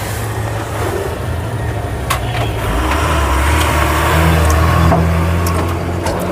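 Diesel truck engine starting about two and a half seconds in, just after a click, then running with a steady low drone that grows a little louder.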